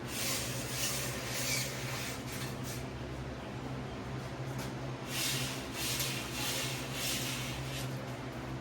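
Repeated rubbing strokes on a bicycle rim's braking surface, scrubbing off crud, in two spells with a short pause between them.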